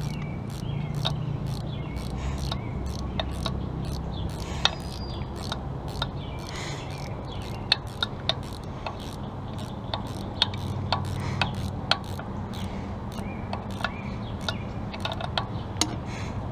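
Hand tools clicking and tapping on metal as bolts are worked loose on an engine's lower intake: sharp, irregularly spaced clicks from a wrench and metal parts, over a low steady hum.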